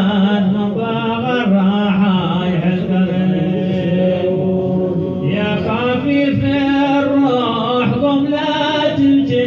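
Voices singing a Hadhrami dān, drawn out in long held, slowly bending notes.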